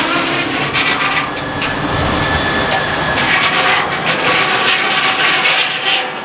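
Sawmill machinery running with a steady, loud mechanical drone and a ringing whine.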